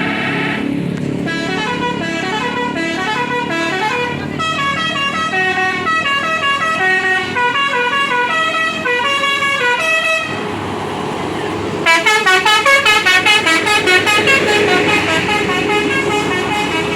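Bus 'telolet basuri' multi-tone musical air horn playing a tune of stepped notes. After a short break about ten seconds in, it plays a fast run of short staccato notes, which cuts off abruptly near the end.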